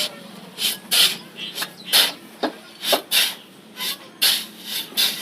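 A hand tool scraping and rasping through wet cement mortar on the ground while it is mixed by hand, in repeated gritty strokes about two a second, with a few sharp clicks.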